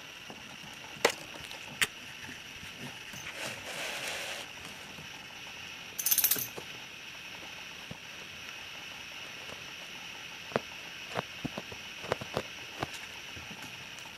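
A kitten playing with a camera's braided tether right by the microphone: scattered sharp clicks and knocks as the tether is batted and tugged against the camera, a rustling scrape a few seconds in, and a brief bright clatter about six seconds in.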